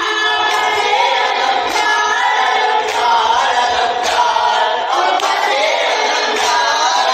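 Boy chanting a noha, a Shia mourning lament, into a microphone, with men's voices joining in. Sharp slaps of chest-beating (matam) sound about once a second under the chant.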